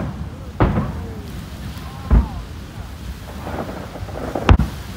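Japanese aerial firework shells bursting overhead: several deep booms, about one every second or two, the loudest and sharpest near the end.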